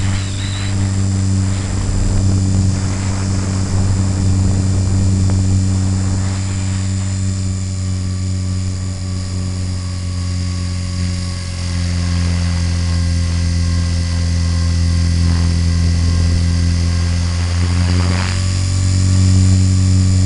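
Radio-controlled helicopter's motor and rotor in flight, heard from its onboard camera: a loud, steady hum that shifts slightly in pitch twice, with brief rushes of wind noise near the start and again near the end.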